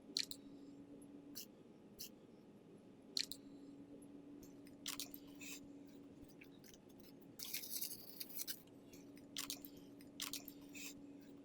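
Faint crinkling and clicking of leafy floral stems and their leaves being bent and worked into a grapevine wreath, in scattered short crackles, over a faint steady hum.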